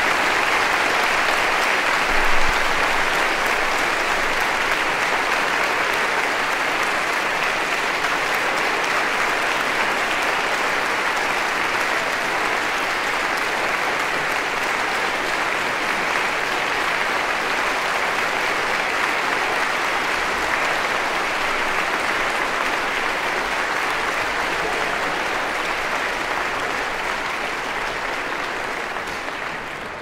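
Small crowd applauding steadily, the clapping fading out near the end.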